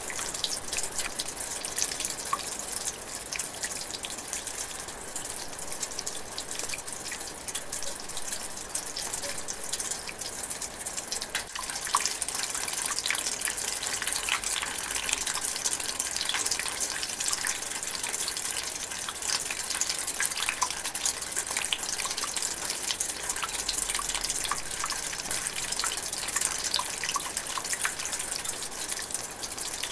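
Light rain drizzling steadily: a dense sprinkle of small drops dripping and ticking, a little heavier from about twelve seconds in.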